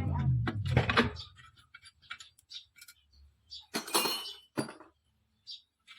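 Metal tools and engine parts clinking and knocking against each other during hand work on an engine. The sound comes as scattered sharp clicks, with a denser clatter about four seconds in.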